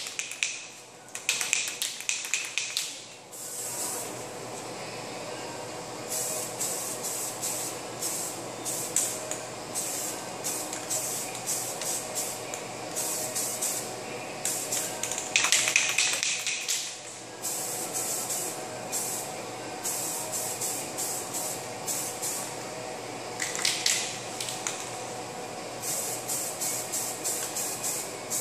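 Aerosol spray paint can being sprayed in many short hissing passes, each under a second, with brief pauses between them.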